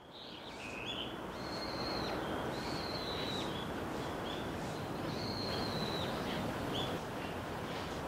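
Common kingfisher giving a series of thin, high whistled calls, some drawn out and level, some short with a dip at the end, over a steady background rush.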